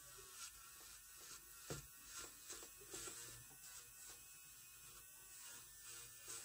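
Electric nail drill (e-file) running faintly with a steady hum, its fine bit set to forward rotation working around the cuticle of a gel-polished nail to flick dead skin away. A few light ticks sound as the bit touches the nail edge.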